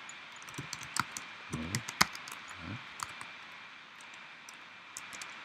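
Scattered, irregular clicks of a computer keyboard and mouse being worked, the loudest about two seconds in, over a steady background hiss.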